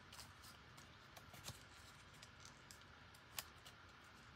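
A few light, scattered clicks and taps of small plastic pieces being handled on a desk, the sharpest one about three and a half seconds in, over near silence.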